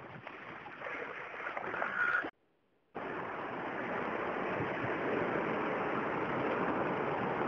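Steady rushing, sloshing water noise around a sea kayak on the move. It cuts out completely for about half a second two seconds in, then comes back slightly louder.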